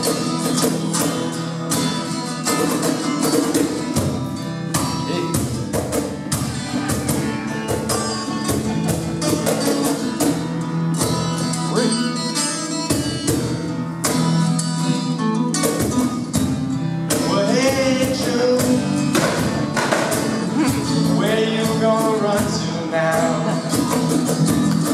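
Live acoustic guitar strummed with a steady cajon beat, an instrumental break in a rock song.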